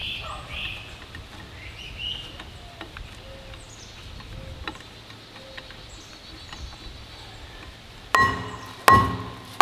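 Birds chirping faintly with a few small clicks. About eight seconds in come two sharp, ringing metal-on-metal strikes less than a second apart, a hammer hitting steel on the excavator's final drive.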